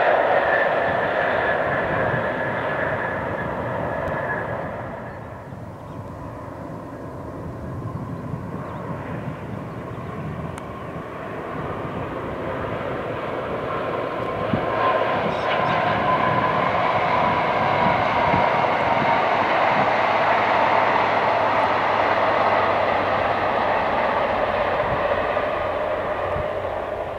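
First Great Western InterCity 125 High Speed Trains, with diesel power cars and wheels on rail, running past at speed. One train's sound fades away over the first five or six seconds, then another builds up from about eight seconds in and holds steady, easing off near the end.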